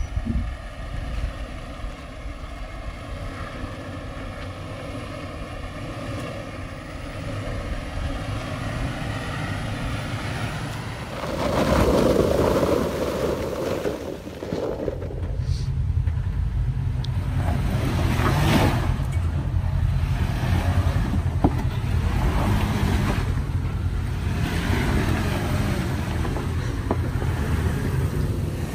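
2018 Toyota 4Runner TRD Off-Road's 4.0 L V6 engine running as the truck crawls over rock. A loud rush of noise comes about eleven seconds in, and the low rumble grows heavier through the second half.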